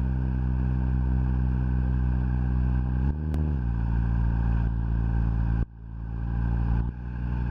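FPV quadcopter's electric motors spinning at idle, armed on the ground, a steady hum with a brief rise and fall in pitch about three seconds in. The hum drops off about two-thirds of the way through and builds back up.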